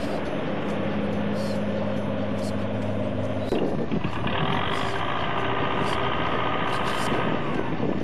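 Claas 105 combine harvester's engine running steadily while cutting corn, then an abrupt switch about three and a half seconds in to a Belarus MTZ-80 tractor's four-cylinder diesel running, higher and busier in sound.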